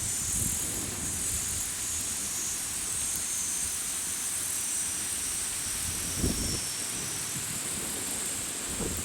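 A campfire burning with low flickering flutter and a few soft pops, the stronger one about six seconds in, under a steady high-pitched chorus of summer insects calling.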